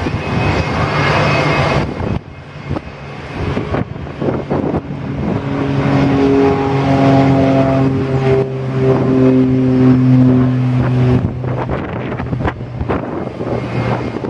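Airbus A319 jet engines running at low thrust as the airliner rolls slowly on the runway: a steady engine drone with a few held humming tones that swell about halfway through and fall back near the end.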